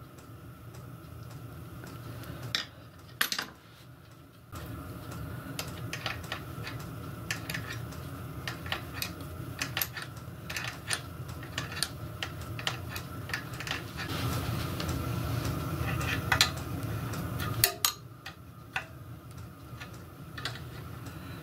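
Metal tool clinking and tapping against the brass fittings of a miniature steam locomotive's hand pump, in irregular light knocks. Under it runs a low steady hum that starts about four seconds in and stops a few seconds before the end.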